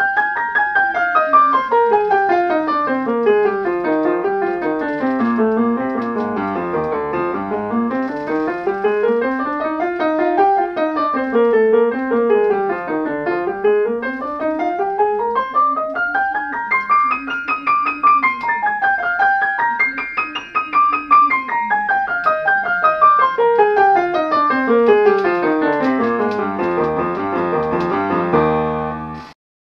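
Background piano music: fast runs of notes sweeping up and down the keyboard, stopping suddenly near the end.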